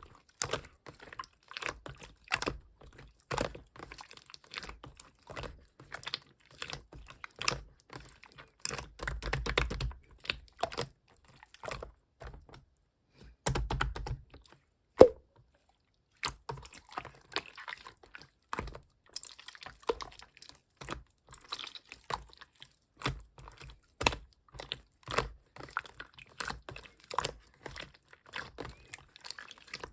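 Hands squishing, poking and folding slime: a steady run of irregular sticky clicks, crackles and small pops. About fifteen seconds in there is one sharp, much louder pop, followed by a second of quiet.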